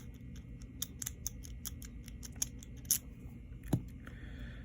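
Lock pick (a quint rake) raking inside an Abus 72/40 aluminium padlock: light metallic clicks of the pins, a few a second, with one louder knock about three-quarters of the way through.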